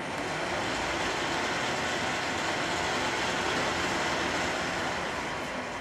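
Schaublin SV-51 milling machine taking a cut with an end mill, milling one flat of a hexagon on a small turned workpiece held in a dividing head: a steady hissing, scraping cutting noise that builds up as the cut starts and eases off near the end.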